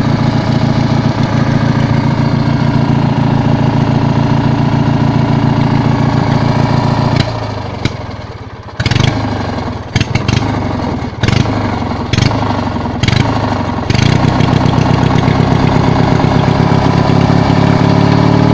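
Riding lawn mower engine running, then cutting out about seven seconds in. It fires in several short bursts over the next few seconds, then catches and runs steadily again.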